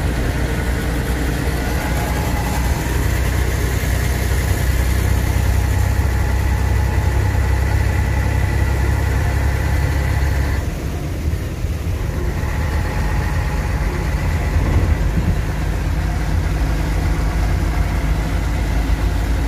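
Scania truck's diesel engine running at road speed, a steady low drone with road noise. The engine note changes, with a brief dip in level, about ten seconds in.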